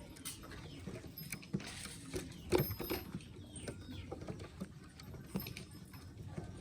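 Domestic pigeons moving about: scattered light taps and scrabbling, with a short rush of noise about two seconds in and a sharper tap just after.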